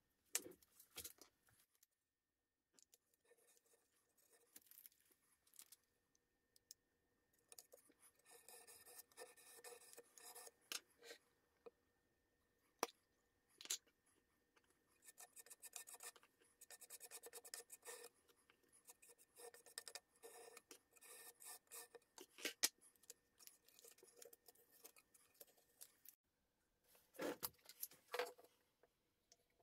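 Faint, repeated scraping strokes of a putty knife spreading wood filler over a taped joint in beech wood, with light clicks, and a couple of louder knocks near the end.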